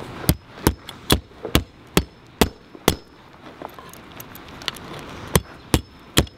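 Hammer driving 16-penny nails through the holes of a metal temporary roof anchor into the roof: a run of about seven sharp blows, a little more than two a second, then a pause of about two seconds and three more blows near the end.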